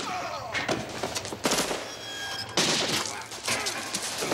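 Movie gunfire: many sharp shots in quick clusters, with impacts, from an action-scene soundtrack.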